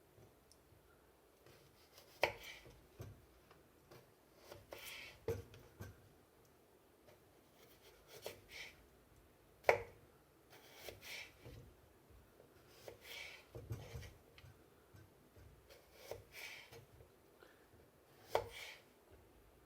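Hands handling cooking things: scattered light knocks and clicks with soft rubbing between them, at irregular intervals.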